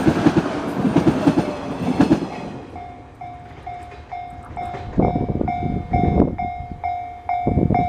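A train passing over a level crossing, its wheels clattering rhythmically over the rail joints, fading out about two and a half seconds in. After it, the crossing's warning bell rings on, about twice a second, with a few low thuds at intervals.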